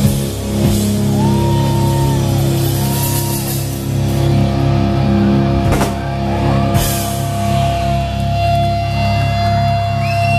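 Live rock band's electric guitar held on a sustained droning chord through a Matchless amplifier stack, with feedback whines bending in pitch and a steady high feedback tone setting in about seven seconds in. Two crashing drum hits land near the middle.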